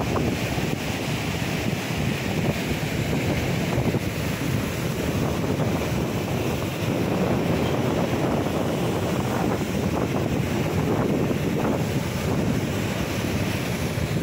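Rough sea surf churning and breaking, with wind buffeting the microphone: a steady, unbroken rush of noise.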